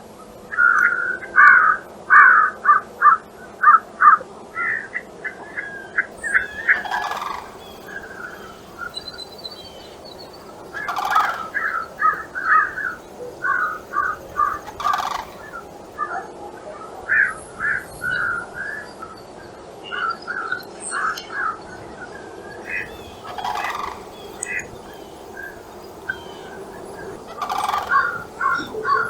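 A group of large wild birds calling, with quick runs of short call notes overlapping one another throughout and a few louder, harsher calls every few seconds.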